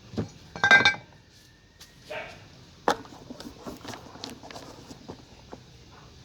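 A short, loud animal call with a clear pitch about a second in, followed by scattered light clicks and knocks.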